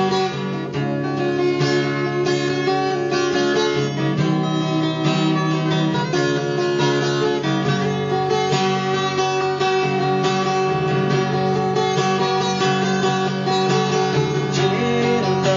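Acoustic guitar playing an instrumental passage of a song, with picked and strummed chords and no voice.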